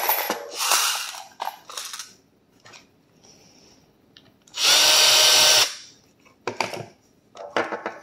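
Cordless drill with a Phillips bit spinning for about a second, about halfway through, pressed into the primer pocket of a fired 5.56 brass case to iron out the primer crimp. Sharp clicks and clatter of the hand priming tool and brass being handled come before it and again near the end.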